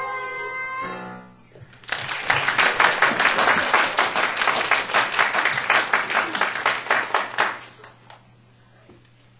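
A children's song with keyboard accompaniment ends on a held note about a second in. After a brief pause, audience applause follows for about five seconds and dies away.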